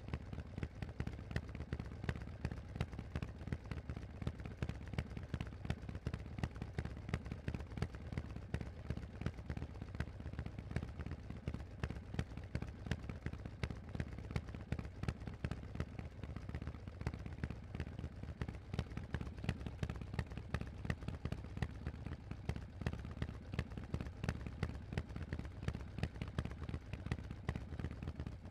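Harley-Davidson Forty-Eight's air-cooled 1200 cc V-twin running steadily through a Vance & Hines aftermarket exhaust while riding: a rapid, even stream of exhaust pulses.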